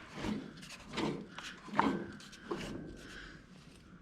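A few light clicks and knocks of hand tools and small engine parts being handled, about five short strikes spaced irregularly through the first two and a half seconds.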